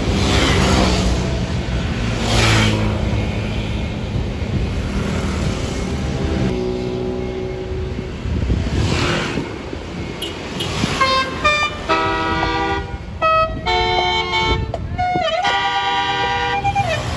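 Tour bus's multi-note 'telolet' basuri horn playing a tune of stepped tones from about eleven seconds in. Before it comes several seconds of bus engine noise.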